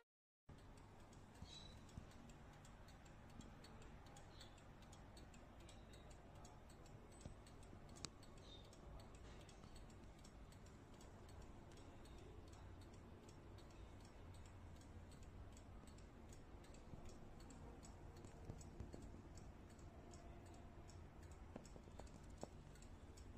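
Faint, steady ticking of a four-column portico mantel clock's pendulum movement as it runs.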